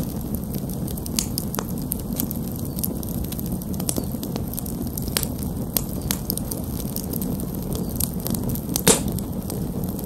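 Open wood fire of split logs stacked in a teepee, burning with a steady low rush of flame and scattered crackles and pops; the loudest pop comes about nine seconds in.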